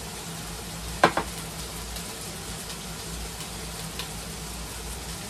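Meat sizzling on a round electric grill plate: a steady frying hiss under a low hum, with one short, louder sound about a second in.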